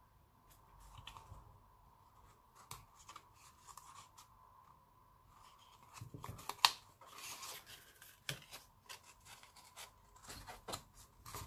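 Hands handling stiff cardstock: faint rustling and scraping of the card, with scattered small clicks and one sharp click a little over six seconds in.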